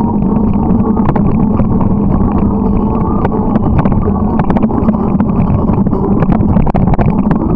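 Steady, loud riding noise from a moving bike: a low drone with wind on the microphone and many small rattling clicks throughout.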